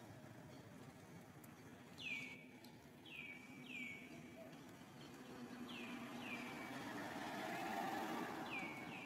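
A bird calling repeatedly: short, down-slurred notes, mostly in quick pairs, every second or two. A broad background hiss swells toward the end and then eases off.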